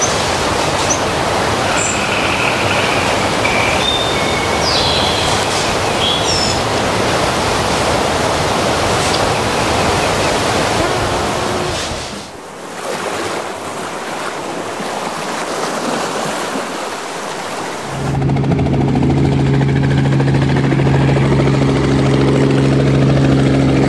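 Rushing water ambience of surf and waves, with a few short chirps in the first seconds; it thins out about halfway through. About three-quarters of the way in, a steady droning helicopter engine hum sets in and holds.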